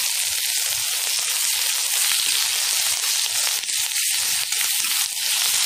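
Sliced onions and green chillies sizzling steadily in hot oil in a black iron kadai.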